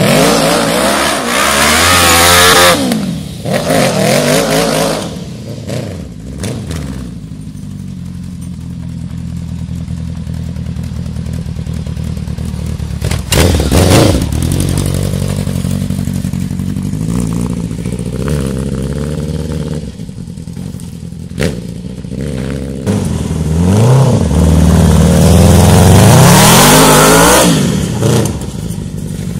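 Motorcycle engine in a light off-road buggy revving up and down hard as the buggy slides around, with tyres scrabbling on loose gravel and dirt. It drops to a lower, steadier run in the middle, gives one sharp rev about halfway, then revs high and long near the end.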